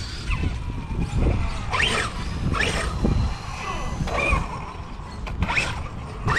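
Brushless electric motors of large RC cars whining in short bursts that rise and fall in pitch as they throttle up and off, about five times, over a steady low rumble.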